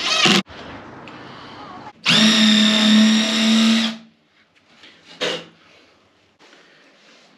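Cordless drill-driver running steadily for about two seconds, driving a screw into plywood.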